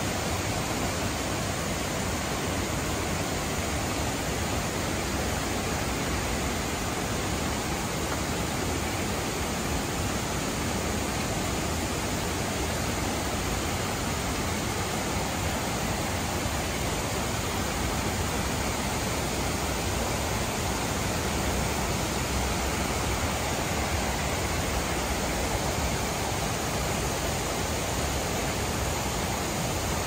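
White water rushing over the rocks of a forest stream's rapids and cascade: a steady, unbroken rush.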